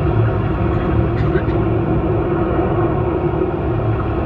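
Steady low rumble and hum inside the cabin of the Disneyland submarine ride vehicle as it cruises.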